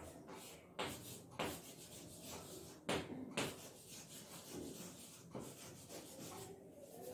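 Chalk scraping on a blackboard in a series of short, faint strokes with pauses between, as words are written out by hand.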